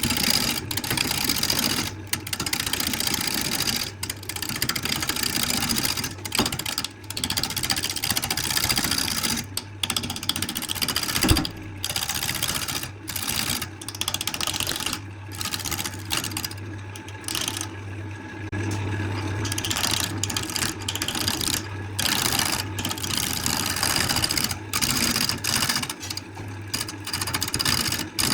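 An electric woodworking machine running with a steady hum while a tool works the wood, the cutting noise breaking off briefly every second or two between passes.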